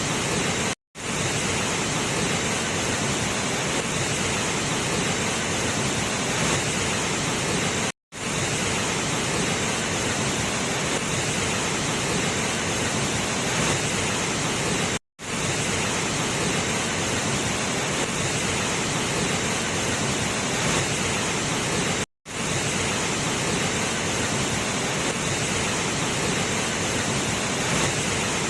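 Steady rush of a waterfall, a dense even roar of falling water, broken by a split-second drop to silence about every seven seconds.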